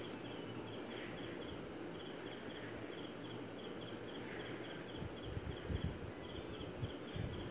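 Faint steady room noise with an insect chirping in a regular train of short high pulses, several a second, and a few soft low knocks in the second half.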